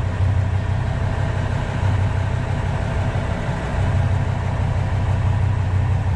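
Forty-foot charter boat's engine running steadily, a low drone with a faint steady hum above it.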